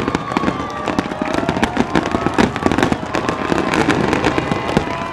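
Dense barrage of aerial firework shells bursting in rapid succession, the bangs overlapping without a pause.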